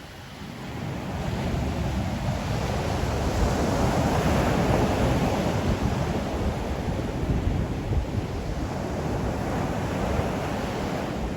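Ocean surf: the rush of breaking waves swells about a second in and then runs on steadily, with wind rumbling on the microphone.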